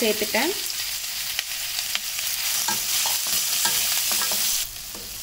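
Hot oil sizzling in a kadai as chopped onions fry, stirred with a wooden spatula that scrapes and knocks against the pan several times. The sizzle drops suddenly near the end.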